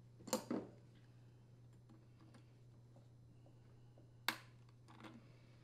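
Faint clicks and knocks of plastic parts being handled by a gloved hand, from a washer's plastic vent pipe and its rubber steam hose. There is a short double knock just after the start and a sharper click a little past four seconds in.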